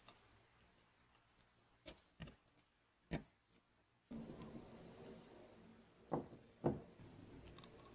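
Light clicks and taps from gloved hands handling a wooden spirit level: three small ones about two to three seconds in, then two sharper ones a little after six seconds.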